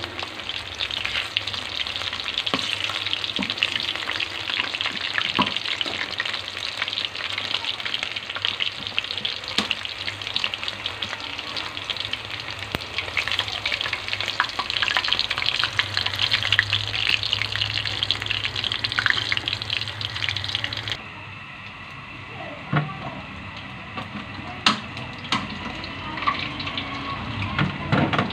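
Bite-size battered chicken pieces deep-frying in hot oil: a steady sizzle full of crackling pops. About three-quarters of the way in the sizzle cuts off abruptly, and a few sharp clicks follow as tongs set the pieces down on a ceramic plate.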